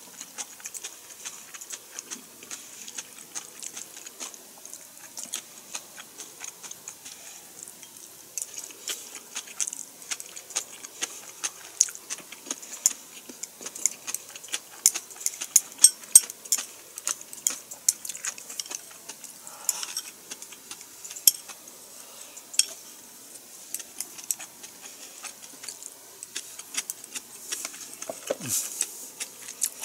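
Eating close to the microphone: chewing with many small, irregular mouth clicks and smacks, busiest around the middle.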